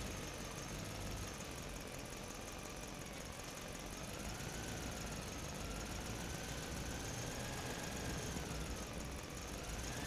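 Faint steady mechanical hum from an unseen engine, with a faint whine drifting slowly up and down in pitch.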